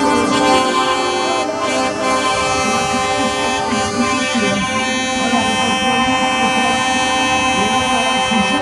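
Music with many sustained notes and a voice over it, playing steadily throughout.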